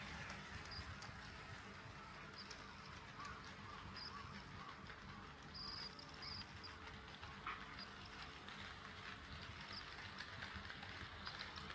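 KATO HO-scale D51 steam locomotive model running on track, its wheels giving a quiet, light clatter over a low running rumble.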